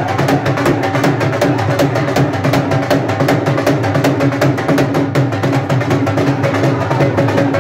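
Dhol, a double-headed barrel drum, played in a fast, steady bhangra rhythm of rapid strokes for dancing.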